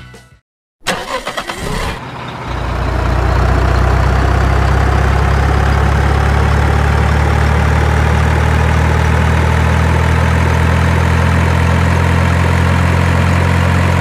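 Heavy truck engine starting: about a second of rapid cranking clicks, then it catches and settles into a steady, deep idle.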